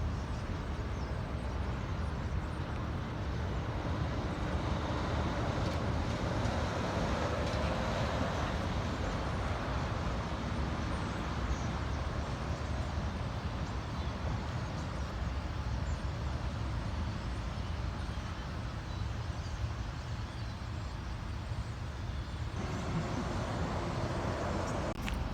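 Steady roadway traffic noise with a continuous low rumble.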